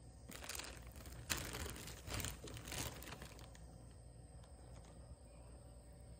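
Plastic bag rustling in a few short bursts as a hand pulls cooked rice vermicelli out of it. It stops after about three seconds.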